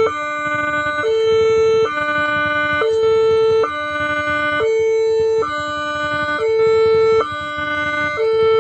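Railway level-crossing warning alarm sounding: an electronic two-tone signal that alternates evenly between two steady chords, each held just under a second. It is the warning that a train is approaching and the crossing is closing.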